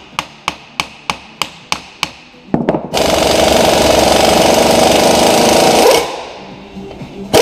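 Air impact wrench driving a bushing press to push a rubber bushing out of a BMW E36's aluminium rear differential housing. It gives a run of sharp, evenly spaced clicks, about three a second, then about three seconds of continuous hammering, and a single loud crack at the very end.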